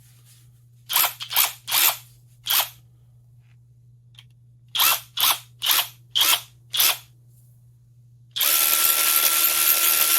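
Hyper Tough 12V brushless cordless electric ratchet triggered in about ten short blips, then running steadily for about two and a half seconds from near the end with a steady whine.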